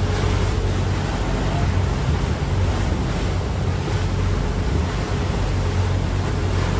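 River passenger boat under way: a steady low engine drone under the rush of its churning wake, with wind buffeting the microphone.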